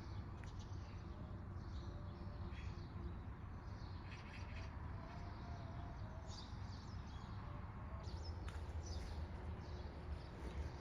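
Small birds chirping now and then, faint, over a steady low rumble of outdoor ambience.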